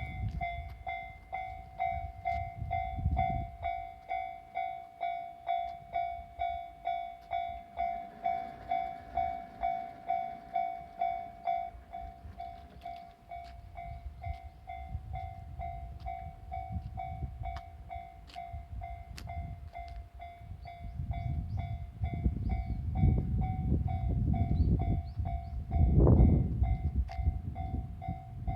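Level-crossing alarm ringing steadily at about two dings a second. In the second half a diesel railcar rumbles up and passes over the crossing, loudest near the end.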